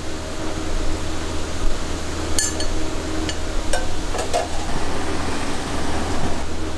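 A few short metallic clinks of a ladle and stainless steel container, clustered about two and a half to four and a half seconds in, over the steady hum of kitchen ventilation.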